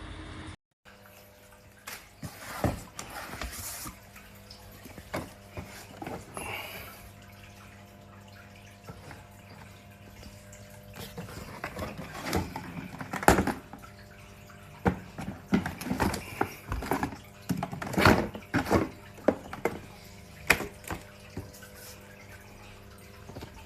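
Water splashing and dripping in irregular bursts in a small room, over a faint steady hum.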